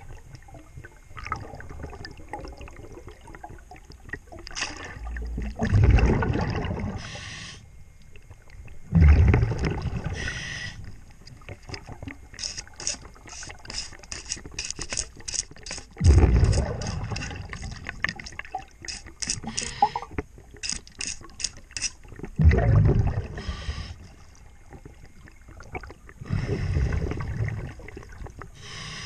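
Diver breathing underwater through a regulator: a loud burst of exhaled bubbles about every five to six seconds. Between breaths, from about twelve to twenty-one seconds in, a hand scrub brush makes quick strokes on the painted hull, about three a second.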